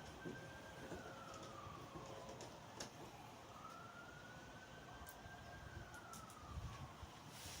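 Faint emergency-vehicle siren in a slow wail, its pitch sliding up and down in cycles of about four seconds, with a few light clicks.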